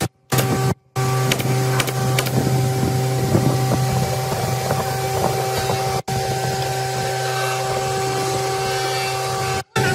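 Air compressor motor running with a steady low hum, supplying air to a pneumatic brad nailer. The sound cuts out briefly a few times, about a second in, around six seconds in and near the end.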